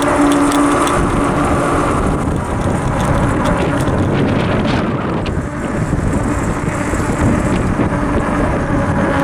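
Wind buffeting the microphone on a moving Sondors electric fat bike, with a steady hum from its rear hub motor in the first second and again near the end.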